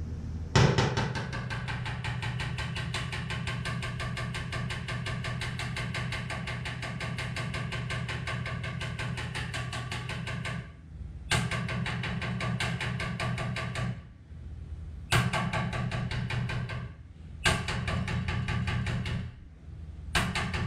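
Rapid, even hammering from a hand-held power tool on the dented sheet-metal panel of a Toyota Tundra, in bursts. The first runs about ten seconds, then shorter ones follow. Each burst starts with a sharp hit and cuts off suddenly.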